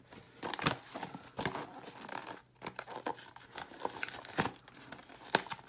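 A cardboard trading-card hanger box being torn open by hand: irregular crinkling and tearing with sharp crackles and snaps, the loudest about four and a half and five and a half seconds in.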